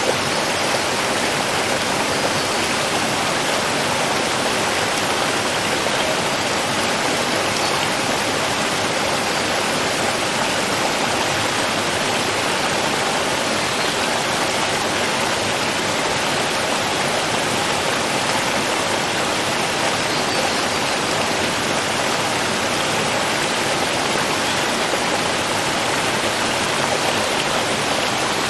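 Running water rushing steadily, an even hiss that does not change.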